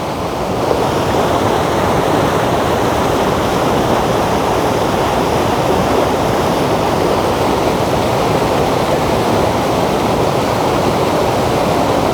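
A waterfall's thick current of water rushing loudly and steadily.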